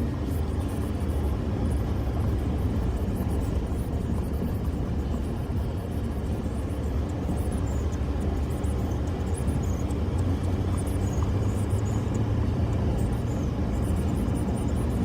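Steady low rumble of a vehicle on the road, engine and tyre noise, with no break or change.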